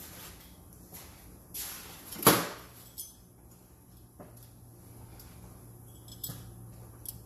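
Handling noises: a loud sharp knock a little over two seconds in, with a few lighter knocks and clicks, as of tools or objects being picked up and set down. A low steady hum runs under them from the loud knock onward.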